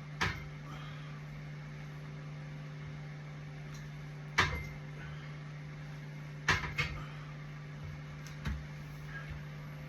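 A steady low hum with a few short, sharp knocks: one just after the start, one about four and a half seconds in, two close together near seven seconds, and a fainter one later.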